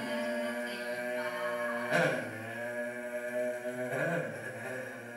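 Sustained droning, chant-like tones from a voice over electronics, held steady with new notes starting about two and four seconds in.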